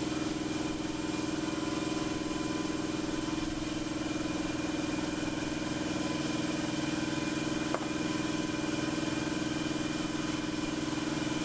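Steady motor hum with an even, unchanging pitch, and a single short click about three-quarters of the way through.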